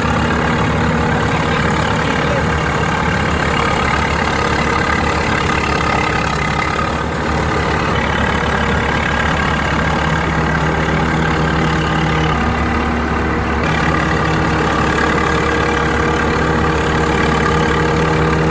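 Punni 654 TM tractor-mounted combine harvester running steadily, its engine and machinery turning over together.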